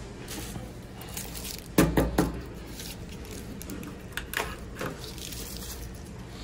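Handling of a plastic-lidded paper drink cup and a paper-wrapped straw: a short cluster of sharp rustling clicks about two seconds in, then a few softer clicks as the straw is unwrapped and pushed through the lid.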